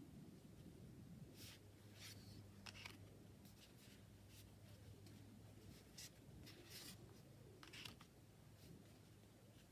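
Faint rustles and soft clicks of tarot cards being handled and flipped, several of them at irregular moments, over a steady low hum.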